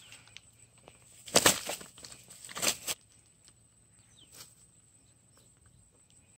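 A freshly landed carp flopping and slapping on the grass in two bursts about a second apart, followed by a faint tick.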